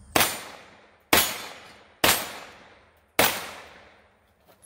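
Four single shots from a CZ Scorpion EVO 3 carbine, about a second apart, each sharp crack trailing off over most of a second.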